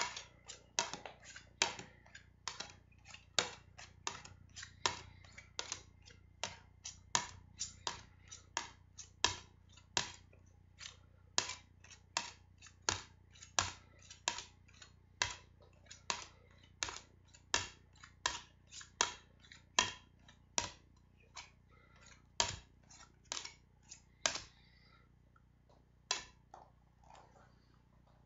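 Plastic CDs clicking against one another as they are handled one at a time on a stack, about two sharp clicks a second. The clicking stops about 24 seconds in, with only a few more after.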